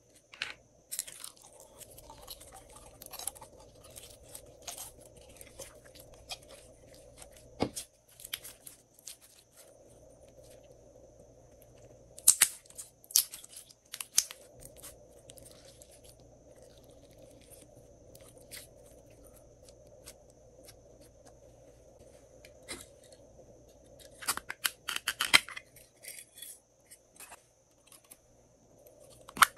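Glossy slime being poured from a plastic jar and squeezed between the hands: sticky clicks and crackles, loudest in two clusters, a little under halfway through and near the end.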